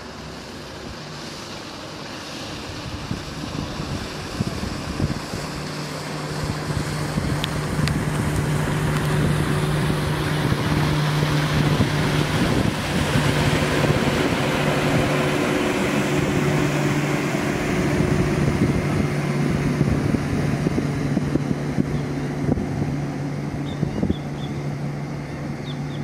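A motor engine running with a steady low hum that builds over the first several seconds and then holds, mixed with wind rushing on the microphone.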